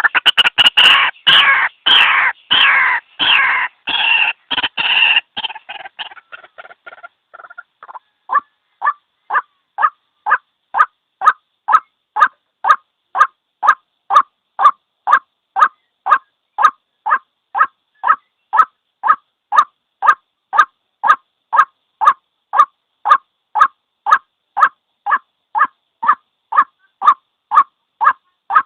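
White-breasted waterhen calling: a loud jumble of harsh overlapping calls for the first five or six seconds, then a long, very even series of single short notes, about two and a half a second.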